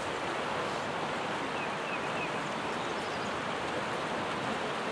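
Steady rushing of a river flowing over a shallow riffle.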